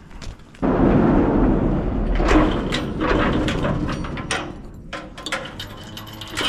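Large sheet-metal sliding door of a cattle shed rolling along its track: a loud rumbling scrape that starts suddenly about half a second in and fades over the next few seconds, followed by scattered clicks and knocks as the door's bolt is handled.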